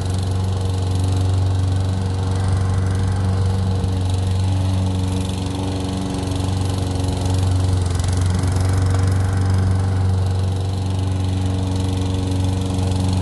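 Small gas walk-behind lawn mower engine running steadily, dipping slightly for a few seconds in the middle.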